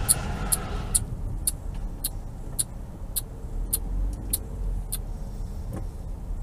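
Road noise inside a moving car, with a turn-signal indicator ticking steadily a little under twice a second.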